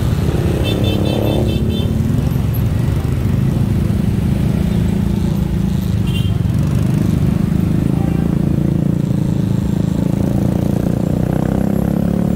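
Small motorcycle engine running at low speed in slow traffic, over a steady road rumble, with a brief rise in revs about a second in. A quick run of short high pips sounds about a second in and again, shorter, around six seconds in.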